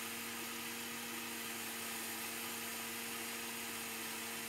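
Electric blender motor running at a steady speed, grinding flaxseeds into powder in its grinder jar: an even motor hum with a hiss of seeds whirling against the jar.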